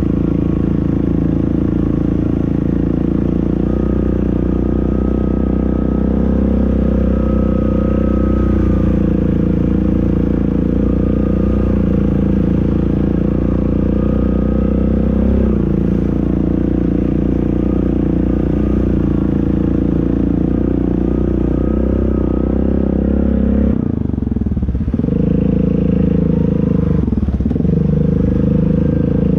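ATV engine running steadily under throttle, with a steady whine above it. The revs drop sharply and climb back twice near the end.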